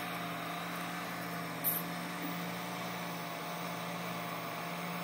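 Homemade CNC diode laser engraver (5 W optical module) running while it engraves dark granite: a steady hum with a faint, slightly wavering whine, and one brief click about two seconds in.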